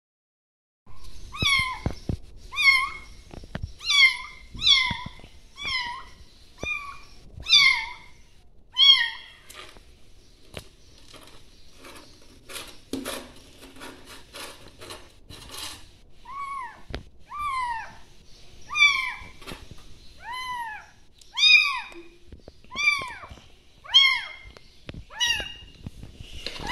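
Young kittens mewing: a run of short, high mews about one a second, broken for a few seconds in the middle by clicks and rustling, then more mews.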